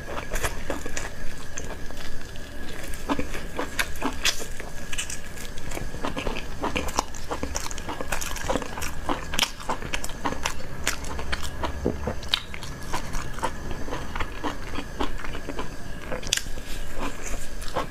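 Close-miked eating: biting and chewing with many irregular crunchy clicks and wet mouth sounds. A faint steady high tone runs underneath.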